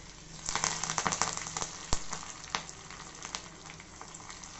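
Curry leaves dropped into hot oil with mustard seeds and green chillies, sizzling and crackling. The crackling surges about half a second in and eases to a steadier sizzle; a single sharp tap is heard near two seconds in.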